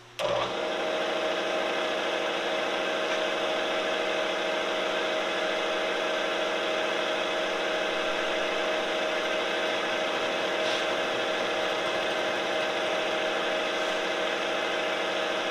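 Vertical knee milling machine's spindle motor switched on and running at a steady pitch, a constant hum with a strong mid-pitched tone. The end mill is turning without cutting while it is touched off on the workpiece.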